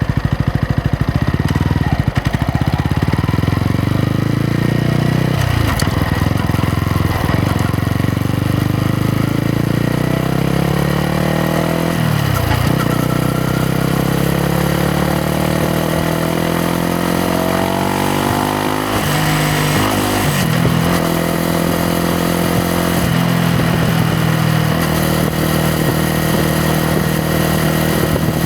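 Yamaha MT-125's single-cylinder four-stroke engine and exhaust under way, pulling up through the revs with sharp drops in pitch at gear changes about 2, 5 and 12 seconds in. It then climbs steadily, drops again about 19 seconds in, and runs at a steadier speed to the end.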